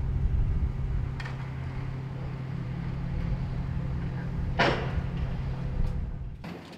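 Machinery engine running with a steady low hum, with a sharp knock about a second in and a louder metallic bang just under five seconds in; the engine sound stops near the end.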